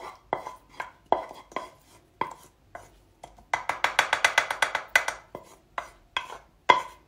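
Wooden spoon scraping and knocking against a nonstick frying pan as rice is pushed out onto a plate: scattered taps, then a quick run of rapid knocks for about a second and a half around the middle.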